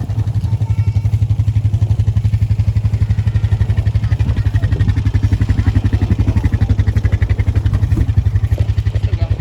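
Farm motorbike engine running steadily at an even speed while being ridden.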